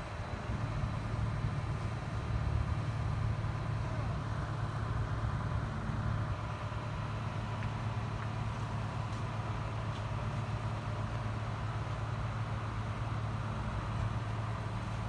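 Heavy diesel engine of construction equipment running at a steady speed: a deep, even drone.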